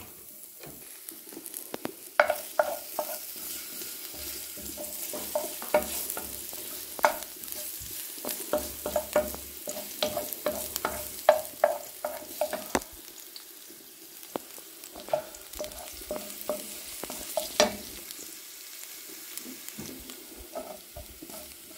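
Sliced garlic sizzling in hot olive oil in a frying pan, while a wooden spoon stirs it, knocking and scraping against the pan in irregular clusters of taps.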